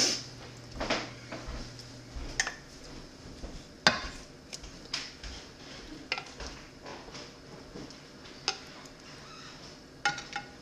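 Scattered clinks and knocks of a plate and utensils against a skillet as seared pork chops are slid back into a pan of sauce, with a sharper clatter about four seconds in.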